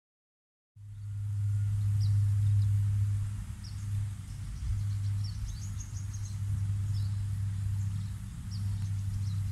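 After a moment of dead silence, a steady low rumble sets in and carries on, with brief high bird chirps scattered over it.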